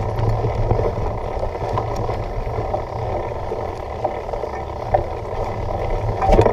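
Mountain bike riding over a dirt trail: a steady wind rumble on the microphone mixed with the rattle of the bike on the rough ground, with scattered clicks and a sharper knock near the end.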